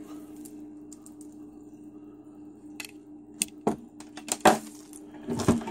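Scattered clicks and knocks of small hard parts being handled on a tabletop, a few sharp ones in the second half and a quick cluster near the end, over a steady low hum.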